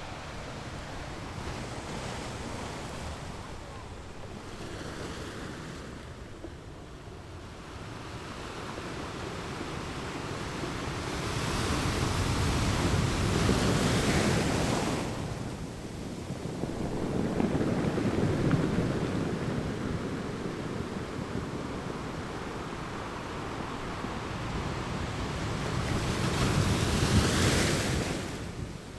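Ocean waves breaking and washing in, with surges at about a third, a half and near the end, and the rush easing between them. Wind noise on the microphone runs underneath.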